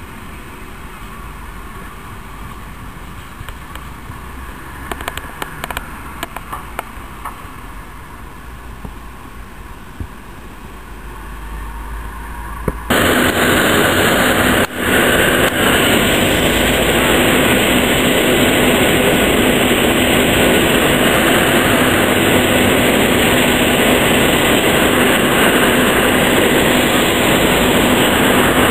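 Street traffic ambience with a few sharp clicks. About halfway through, a sudden loud, steady rushing noise takes over and drowns everything else out.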